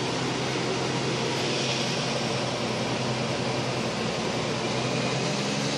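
Western Star truck's diesel engine running steadily as the truck rolls slowly, heard from inside the cab: an even drone with a steady low hum.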